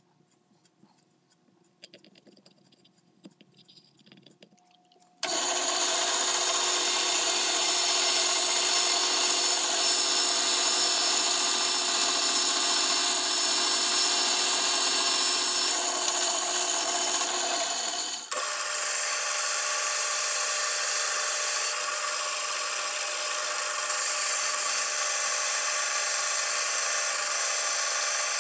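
Vertical band saw running and cutting through a hardwood block, which the owner thinks is walnut: a loud, steady cutting noise that comes in abruptly after a few quiet seconds. A little past halfway it drops out for a moment and comes back with a slightly different tone as a smaller piece is cut.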